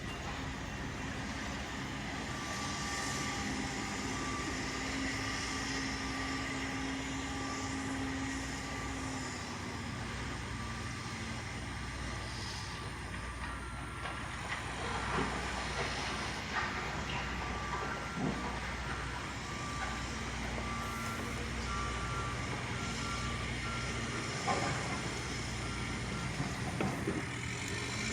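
Backhoe engine running under the steady beeping of a reversing alarm. About halfway through, a second, higher-pitched reversing alarm beeps along with it, and there are a few scattered knocks.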